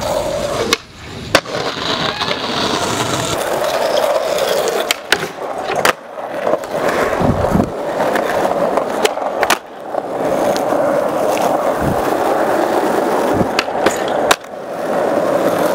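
Skateboard wheels rolling steadily over concrete and asphalt, with several sharp clacks of the board popping and landing. Near the end the board slides along a bench.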